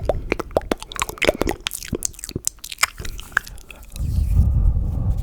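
Close-up ASMR mouth sounds: rapid wet clicks, pops and smacking right at the microphone. About four seconds in they give way to a continuous low rumble very close to the microphone.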